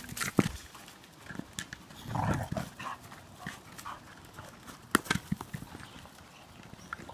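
A dog chasing and pushing a big plastic ball across dirt and grass: scattered taps and thumps of paws and ball, with a rougher, louder burst about two seconds in.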